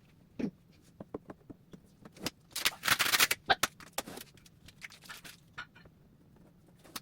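Handling noises: a scattering of light clicks and knocks, with a longer scraping rustle about two and a half seconds in.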